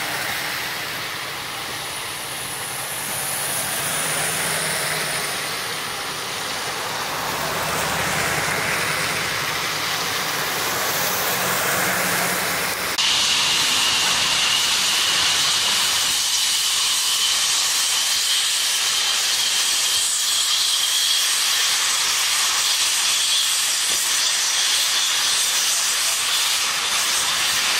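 Steady hiss of rain on a wet highway with a vehicle engine running, then an abrupt cut to a burning house. The fire gives a louder steady rushing hiss with a thin high whine held over it.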